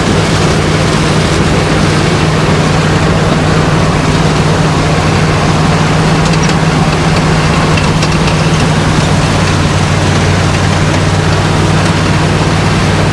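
Heavy farm machinery engine running steadily at an even speed, a loud continuous low hum.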